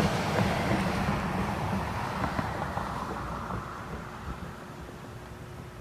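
A passing vehicle's rumble, fading away steadily over several seconds.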